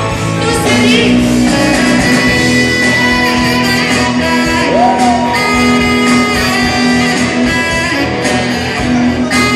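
Live saxophone solo over a pop-rock band, the sax playing long held notes above electric guitar and the rest of the band.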